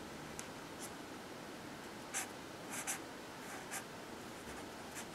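Copic marker nib stroking across sketchbook paper while shading a drawing. It makes a handful of short, faint hissing strokes, most of them about two to three seconds in, over quiet room hiss.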